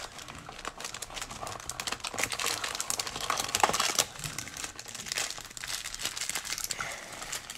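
Foil-wrapped Donruss Optic baseball card packs crinkling and crackling as they are handled, a dense run of small crackles that gets busiest about three to four seconds in.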